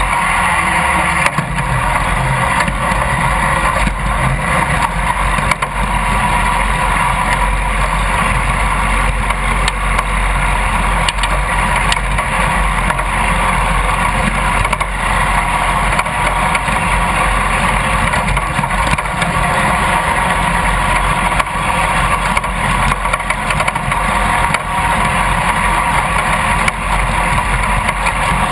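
Riding lawn mower's engine running steadily as the mower drives over a rough trail, heard loud and close from a camera mounted on the machine.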